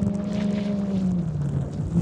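Off-road race vehicle's engine running at a steady high pitch, with the revs dropping about a second and a half in.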